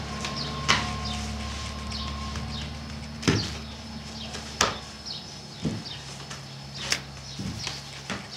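Irregular soft thuds and sharper knocks, about six in all, as rounds of dough are handled and patted down on a floured cloth-covered table. Under them runs a steady low hum, with many short high chirps of birds.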